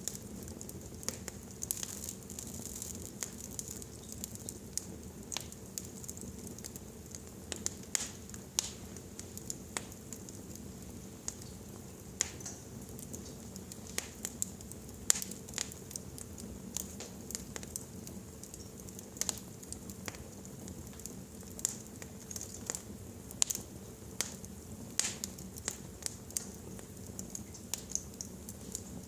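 Wood fire crackling in a fireplace: irregular sharp pops and snaps, a few each second, over a steady low hiss and hum.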